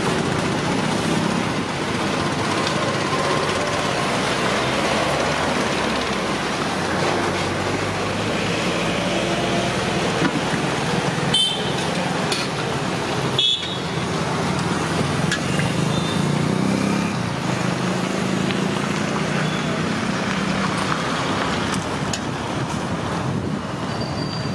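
Steady road traffic noise with vehicle horns honking now and then.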